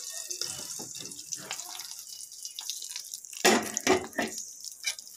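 Hot cumin-and-red-chilli tempering oil sizzling on cold yogurt raita, the hiss dying away within the first half second. A few sharp knocks from a steel spoon against the steel bowl follow from about three and a half seconds in.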